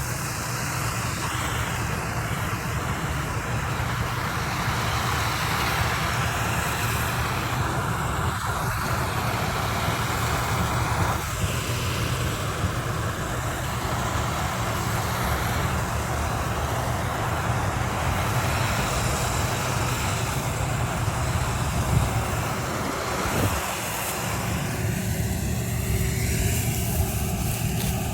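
Engine of a rice-harvesting machine running steadily at working speed.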